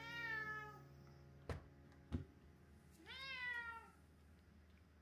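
Domestic cat meowing twice, about three seconds apart, each call rising then falling in pitch. Two sharp clicks sound between the meows.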